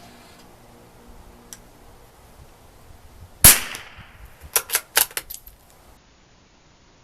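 A single .22 LR rifle shot from a Lithgow LA101 bolt-action rimfire, a sharp crack with a brief ringing tail about halfway through. About a second later comes a quick run of five or so sharp metallic clicks as the bolt is worked.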